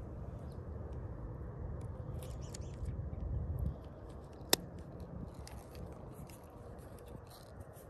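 Small plastic clicks and rustling from a fish lip grip being clamped on a bass's jaw and hooked onto a hand scale, with one sharp click about four and a half seconds in.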